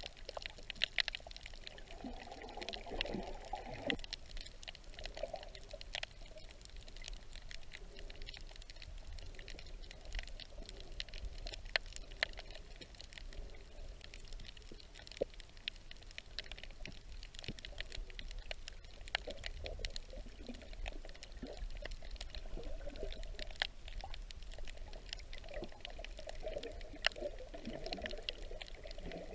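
Underwater sound picked up by a camera held below the surface over a coral reef: muffled water noise with scattered sharp crackling clicks throughout, and bursts of gurgling about two to four seconds in and again near the end.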